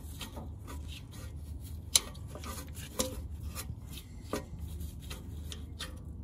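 Ball-socket end of a shifter cable being screwed by hand along its threaded rod: a run of small clicks and rubbing, with two sharper clicks about two and three seconds in, over a low steady hum.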